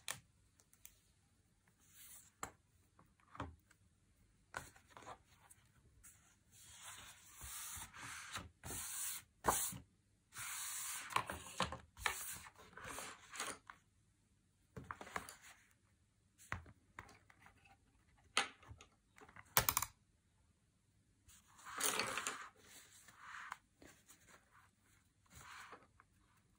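Hardcover sketchbook being handled: paper pages turned and rustled, with scattered small clicks and taps. The rustling is loudest in the middle and again near the end.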